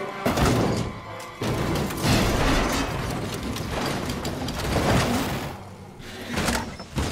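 Sound effects of a stock race car crashing and tumbling over and over, a series of heavy crashes and scraping impacts, with music underneath.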